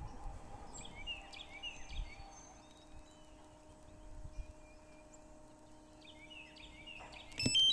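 Small birds chirping in short, repeated calls over a faint steady hum, with low gusts of wind buffeting the microphone early on. A sudden, louder electronic tone cuts in just before the end.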